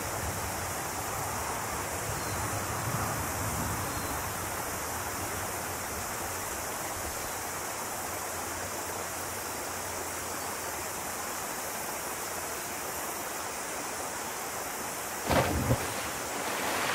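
A steady background hiss, then about fifteen seconds in a loud splash, two quick surges under a second long, as a diver plunges into the river from a 20-foot cliff.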